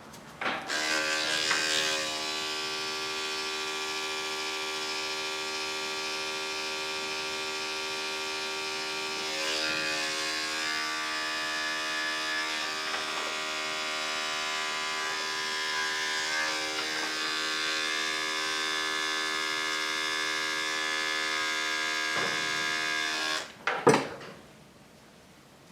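Electric dog grooming clippers buzzing steadily, switched on about half a second in and cut off near the end, followed by a sharp knock.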